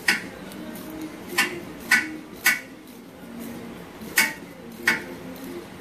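Ratchet wrench working the bolts of a front driveshaft CV-joint flange: six sharp metallic clicks at uneven intervals, each with a brief ring.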